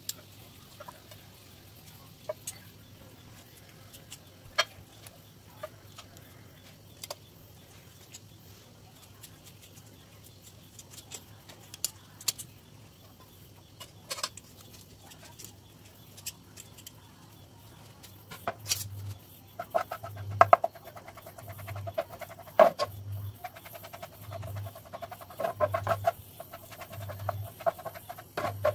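Metal kitchen tongs clicking and scraping against a ceramic plate as cooked chicken drumsticks are pulled off the bone, in scattered sharp taps. From about eighteen seconds in the taps come thicker and louder, with a buzzing, low pulsing sound that repeats about every second and a half.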